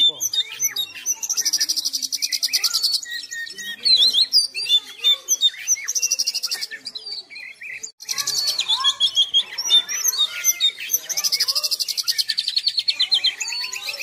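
Oriental magpie-robin (kacer) singing without pause: quick varied whistled notes broken by long, rapid rattling trills, one early on a couple of seconds long and a longer one through the second half.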